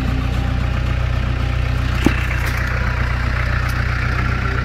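Jeep engine running steadily at low revs, with a single sharp click about two seconds in.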